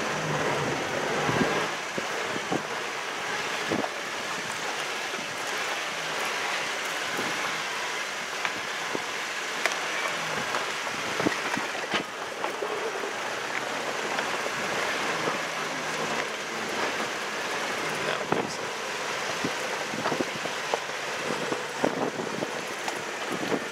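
A Toyota off-road vehicle driving slowly along a rough dirt track: a steady rush of tyre and road noise, with frequent small knocks and clicks from stones and ruts under the tyres.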